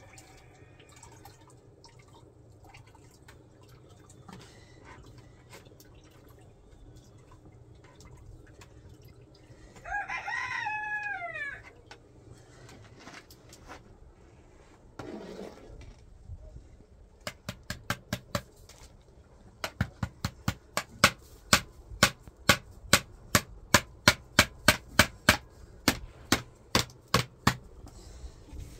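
A rooster crows once, a drawn-out call falling at the end, about ten seconds in. Through the second half comes a long run of sharp taps, about three or four a second, louder than the crow.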